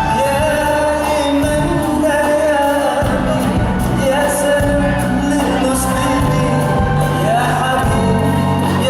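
A song performed live: a sung melody with long held notes over instrumental accompaniment and a steady bass line.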